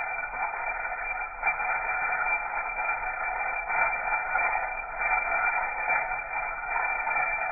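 Evinrude E-TEC 90 hp crankshaft bearing spun by hand on the bare crankshaft, giving a steady whirring hiss with a few faint ticks. It is being compared for how long it spins and what noise it makes, in the hunt for a vibration that a worn bearing is suspected of causing.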